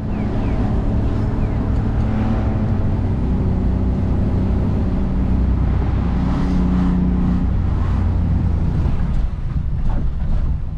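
Small van's engine and road noise heard from inside the cab while driving. The engine note changes pitch a few times as the van speeds up and slows.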